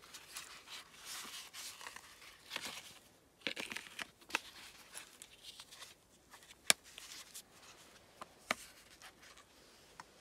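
Nylon knife sheath rustling and scraping as it is handled, with a few sharp clicks; the loudest click comes about six and a half seconds in and another near eight and a half.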